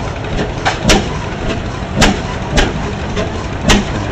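60 hp Bessemer stationary gas engine running, its exhaust firing in four sharp bangs about a second apart and unevenly spaced. A steady low engine rumble runs underneath.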